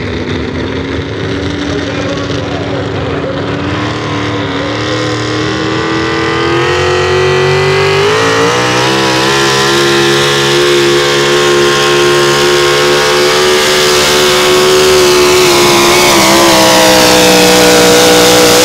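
Super Stock 4x4 pulling truck's engine at full throttle under load while dragging a weight sled, with tires spinning. Its pitch climbs in steps, about a third of the way in and again near the end, and it gets steadily louder as the truck nears.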